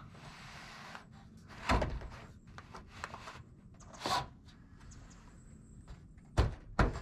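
Sheet-steel roof rake trim being handled and worked onto its cleat: a few scattered thunks with faint rubbing between. The loudest is about two seconds in, and two more come close together near the end.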